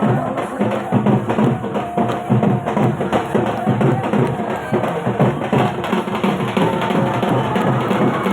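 Dhak, the Bengali barrel drum, beaten with sticks in a fast, continuous rhythm.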